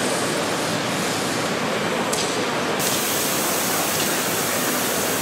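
Live-steam model locomotive hissing steam. A sharper, higher hiss comes in between two and three seconds in and holds.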